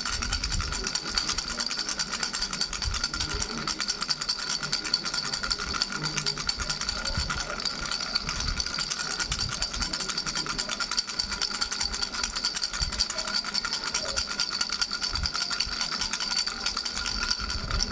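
A baby's rattle fitted with bells, shaken continuously: a fast, even jingling over steady ringing bell tones, with low bumps now and then.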